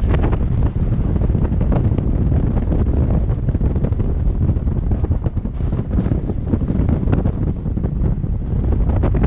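Wind buffeting the microphone of a paraglider in flight: a loud, continuous rumble of airflow, heaviest in the low end, with no other sound standing out.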